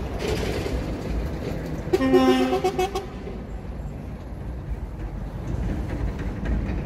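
A horn sounds once, a steady pitched toot lasting about a second, over a constant low rumble.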